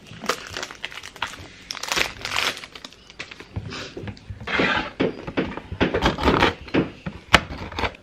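Plastic wrapper of a Hershey's cookies and cream candy bar crinkling and tearing as it is unwrapped, in irregular rustles, with a sharp tap about seven seconds in.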